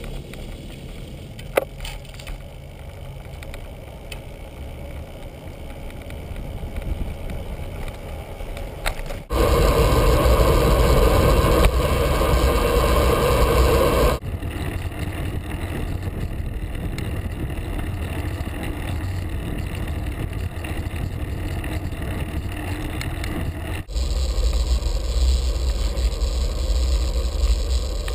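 Wind rushing over a bicycle-mounted GoPro Hero, with tyre rumble from rolling along paved road. There is a single sharp tick about a second and a half in. The loudness jumps abruptly about a third of the way through, drops back around halfway, and rises again near the end.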